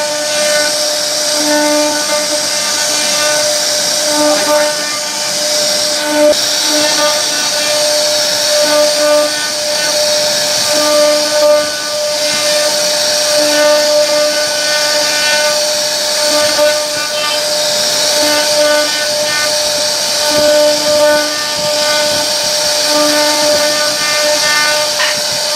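CNC router's spindle running with a steady high whine over a hissing cutting noise. The lowest tone of the whine swells and drops away every second or two.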